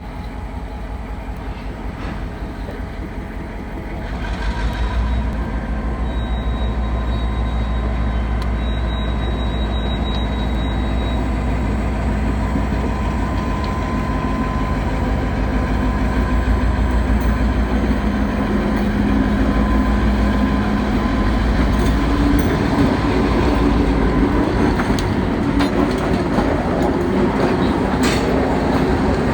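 Diesel freight train running, a steady low rumble with the locomotives' engine drone, stepping up about four seconds in and growing louder.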